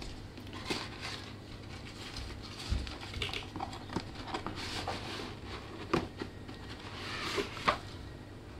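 Cardboard box being opened and its packaging handled: irregular scrapes, taps and rustles of cardboard and paper, with a sharper knock about six seconds in and another shortly before the end.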